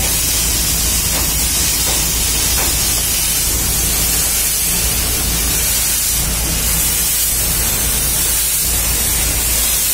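Portable gas-heated thermal fogging machine running, with a loud steady hiss as its glowing coil turns diesel into thick fog.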